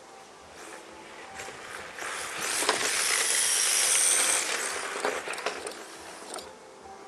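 HPI Sprint 2 RC drift car with a brushless motor passing at speed on asphalt: a high electric-motor whine with tyre hiss. It swells about two seconds in, is loudest around three to four seconds, and fades away by about six and a half seconds.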